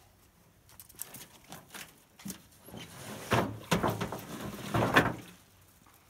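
Rustling and knocking as a tarp sail and gear are handled on an aluminium canoe: a run of irregular scuffs and bumps, loudest from about three to five seconds in.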